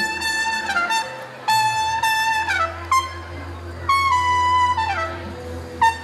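Trumpet playing long held high notes, each one bending down in pitch as it ends, in several phrases over a low steady drone.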